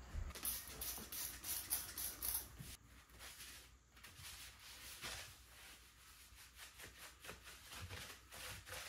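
A cloth rubbing over a skateboard deck, wiping it clean in quick scratchy strokes, busiest in the first couple of seconds and then sparser.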